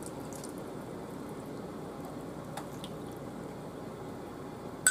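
Chicken broth pouring and dripping from a glass measuring cup into a baking pan of gravy-covered chicken, a soft steady liquid sound. A sharp click comes at the very end.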